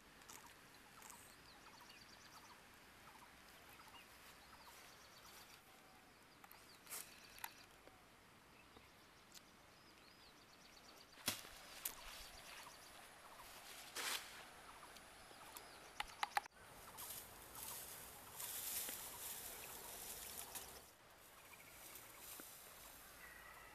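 Faint outdoor ambience with birds chirping. Partway through come several sharp strikes of a blade chopping into brush, then a stretch of leaves and branches rustling.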